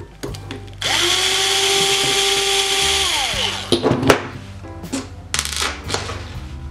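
Cordless drill driving a screw through a plastic suspension link end. The motor spins up about a second in, runs steadily for about two seconds and winds down, followed by two sharp knocks.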